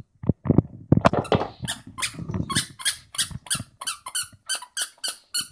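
Dog biting down on a plush squeaky toy, squeaking it over and over. The squeaks are irregular at first, then settle into a quick, even run of about four a second.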